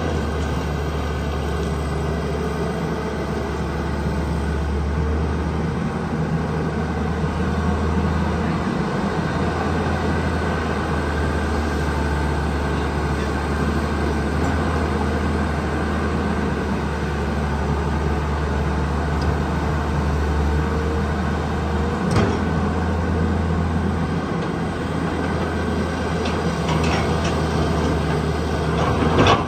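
Tata Hitachi 200 tracked hydraulic excavator's diesel engine running steadily as it digs and swings to load a dump truck, with a sharp knock about 22 seconds in and a few more clanks near the end.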